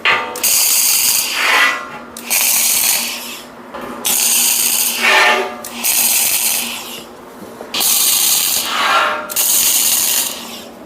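MIG (wire-feed) welder laying tack welds: about six short bursts of sizzling arc crackle, each roughly a second long, with brief pauses between them.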